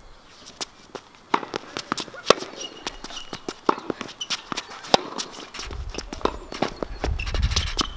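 Tennis rally on an outdoor hard court: racquet strikes and ball bounces as a string of sharp pops, with footsteps between them. Wind rumbles on the microphone in the last couple of seconds.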